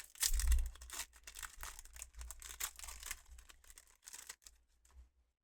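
A Pokémon booster pack's foil wrapper being torn open and crinkled, loudest in the first second, dying down to a few light rustles and clicks over the last second.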